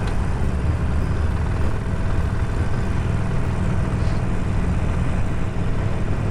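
Harley-Davidson Sportster Forty-Eight's air-cooled V-twin running steadily under way, heard through a microphone close to the rider's mouth with wind and road rush mixed in.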